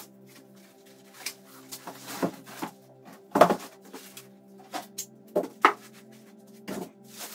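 Cardboard box and foam packing handled during unboxing: a series of scrapes, knocks and rustles, the loudest about halfway through, over quiet background music.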